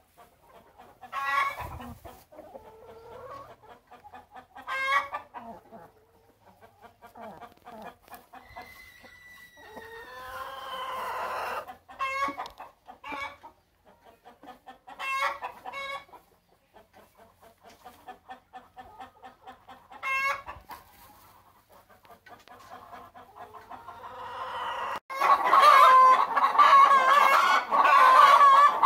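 Chickens clucking and giving short, sharp calls, with a longer drawn-out call that rises and falls in pitch, typical of a rooster crowing, about ten seconds in. Near the end many birds call at once and it becomes much louder.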